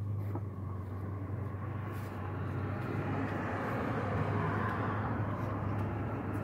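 Vehicle noise: a steady low engine hum, with a broad rushing sound that grows louder from about two seconds in.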